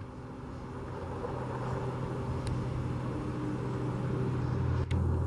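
A car engine running at low revs with a steady hum, growing gradually louder.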